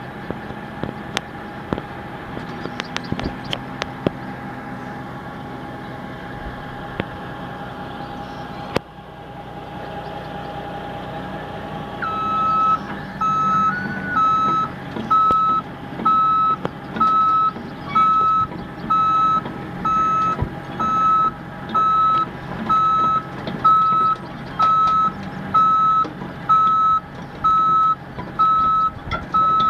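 A heavy diesel engine runs steadily. About twelve seconds in, a backup alarm starts: one high beep roughly every second, louder than the engine.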